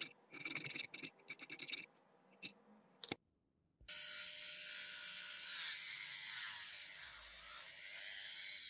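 A needle file rasping across a thin metal part held in a vise, in quick short strokes. About four seconds in, after a click and a short break, a steady loud hiss takes over.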